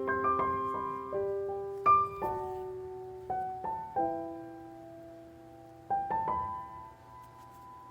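Background piano music: a slow, gentle melody of single notes and chords that ring and fade, with a longer held note partway through.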